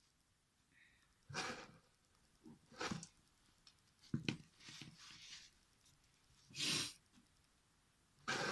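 A person sneezing repeatedly in a small room: about five short, breathy bursts one to two seconds apart, with quieter breaths between them.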